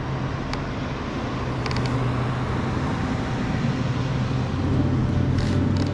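An engine running steadily with a low hum; about two-thirds of the way through its pitch drops to a lower, steady hum.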